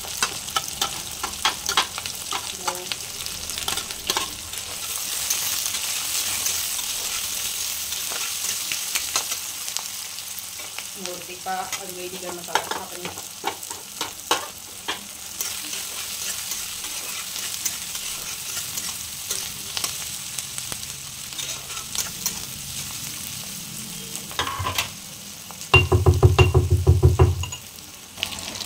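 Chopped onions sizzling as they fry in hot oil in a wok, with a steel spatula stirring and clicking against the pan. Near the end a loud low buzz lasts about two seconds.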